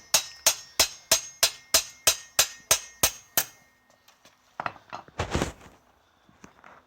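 Hammer tapping a BMX bottom bracket into the frame: about eleven sharp, ringing metal-on-metal strikes at roughly three a second, stopping about three and a half seconds in. A few softer knocks follow about a second later.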